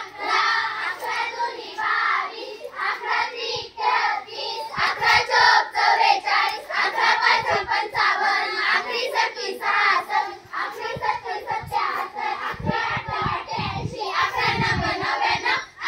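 A group of schoolchildren chanting multiplication tables together in a rhythmic sing-song, in Marathi, clapping along.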